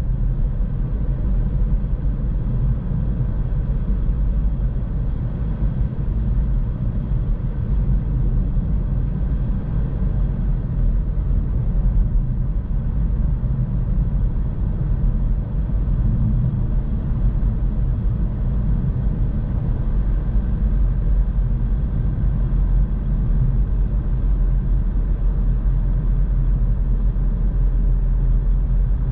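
Steady low rumble of a car driving along a road: tyre and engine noise that holds even throughout, with no sudden sounds.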